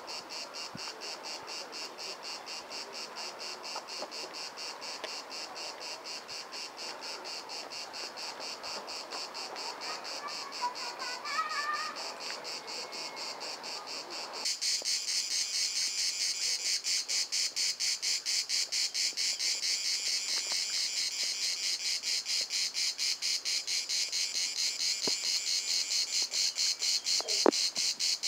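Cicadas singing in a steady train of rapid, even pulses, growing clearly louder about halfway through.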